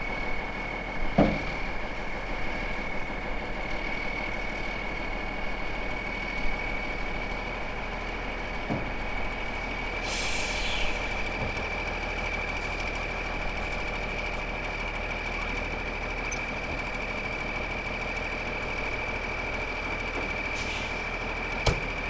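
Farm machinery running steadily: an International 1466 tractor driving a grain auger, and a semi truck's engine running while its grain trailer is lowered. A constant high whine runs through it, with a couple of light knocks and a brief hiss partway through.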